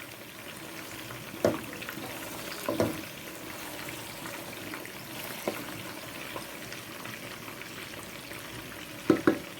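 Garden egg sauce with blended pepper and onions cooking in a pot with a steady hiss while it is stirred, the spoon knocking against the pot a few times, twice in quick succession near the end.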